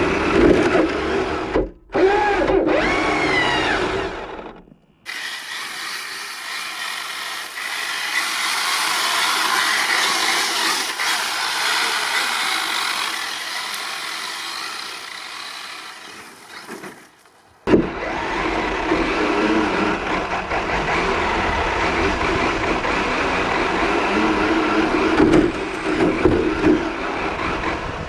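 Brushless electric motor of a Kyosho DRX VE radio-controlled rally car whining and revving, with rising sweeps of pitch near the start. The sound cuts off abruptly twice. The middle stretch is thinner and hissier, with no low end.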